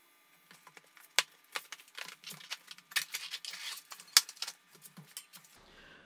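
Maxxis High Roller II tubeless tyre being worked off its WTB alloy rim by hand: a string of irregular snaps and clicks with short rubbing scuffs of rubber against the rim.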